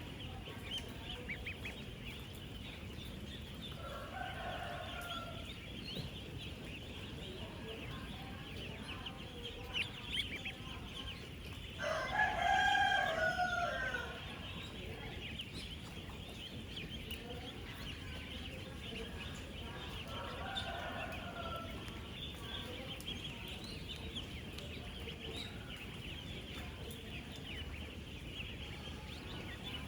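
Dense, unbroken peeping of thousands of ten-day-old ducklings. A louder drawn-out call from a bigger bird rises over the chorus for about two seconds near the middle, and two fainter calls like it come earlier and later.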